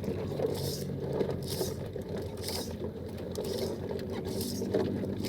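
Steady low hum of a boat engine, with soft swishes recurring about once a second.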